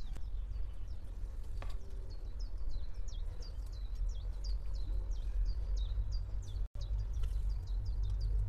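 A small bird chirping over and over, short falling chirps about three or four a second, over a low steady rumble. A single soft knock comes about one and a half seconds in.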